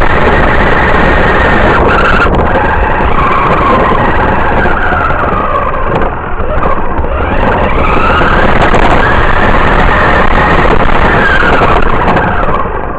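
Radio-controlled car driving over rough asphalt, heard from a camera mounted on the car: loud, constant wheel and road rattle, with the motor's whine rising and falling in pitch as the throttle changes, easing off briefly about six seconds in.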